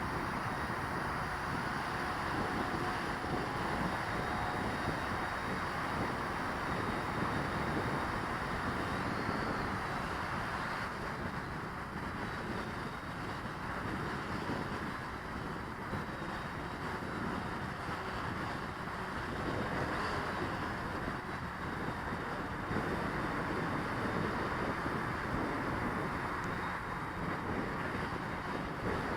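Gusty wind rushing over the microphone, with a quadcopter's motors and propellers running steadily.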